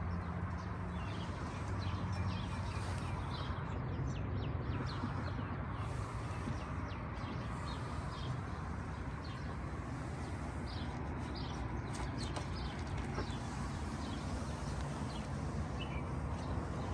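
Outdoor ambience: many short bird chirps over a steady low rumble.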